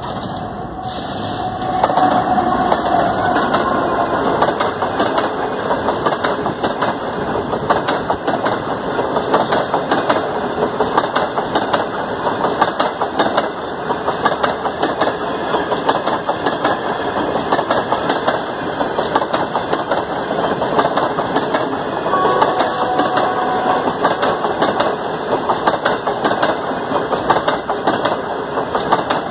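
Pakistan Railways GEU-40 diesel-electric locomotive passing close by at the head of the Green Line express, its engine loud as it arrives, then the coaches rolling past with a fast, continuous clatter of wheels on the rails.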